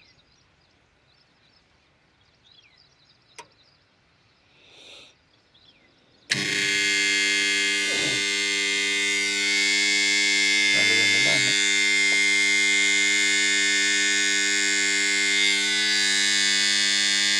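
A pump's DOL starter switching the motor on when the auto-start timer runs out: after a quiet spell, a sudden loud, steady electrical buzz-hum starts about six seconds in and runs on evenly.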